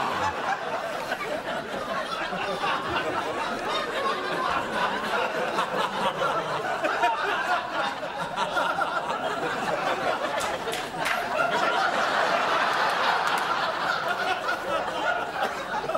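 Studio audience and cast laughing at a blown line: a long, dense, unbroken wave of crowd laughter.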